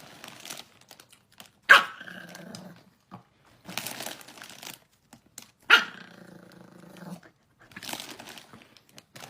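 A dog barking: two loud barks about four seconds apart, each trailing off over about a second, with rustling noise in between.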